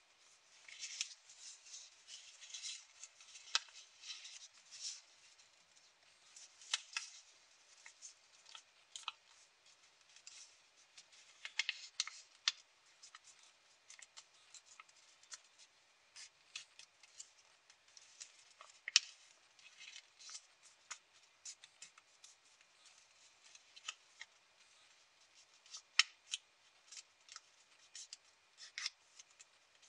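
Origami paper being handled and folded by hand: irregular rustling and crackling of the sheet, with scattered sharp crackles as it is pressed and creased.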